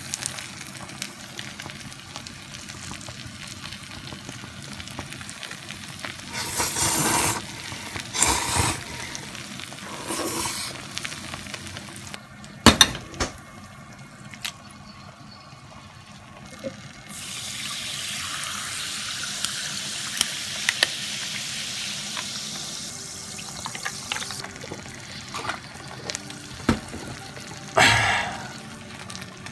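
Noodles sizzling in a hot sandwich maker as they are tossed, with a few louder bursts of stirring and a sharp knock. In the middle, a drink is poured over ice into a glass for several seconds.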